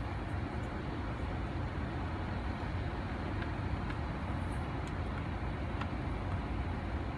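Steady low cabin noise of a 2010 Ford Edge with the engine running and the climate-control fan blowing. A few faint clicks of dashboard buttons being pressed come through partway in.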